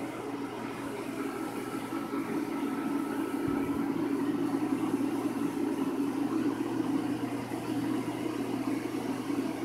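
A steady, low mechanical hum, like a small motor or fan running, that grows a little louder over the first few seconds and then holds, with a faint thin whine for a second or two near the start.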